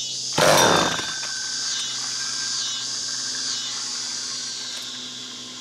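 Crickets chirping in a steady high-pitched chorus with a slow pulse. A brief loud rush of noise comes about half a second in.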